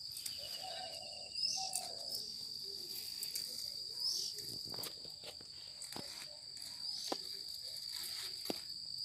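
A steady high-pitched insect drone runs throughout. Sharp snaps come every second or so from about the middle onward as pumpkin leaf stems are broken off by hand.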